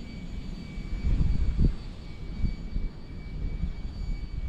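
Wind buffeting the camera microphone: a low, uneven rumble that swells and dips, with a faint steady high whine underneath.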